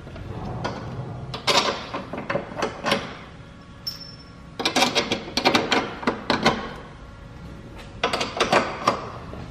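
Light knocks and scrapes of a CNC-cut wooden prototype brace being pushed and shifted against a car's metal underside and subframe while it is test-fitted, coming in three bouts of quick clatter.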